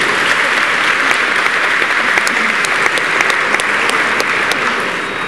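Audience applauding in a large hall, many hands clapping at once, easing off near the end.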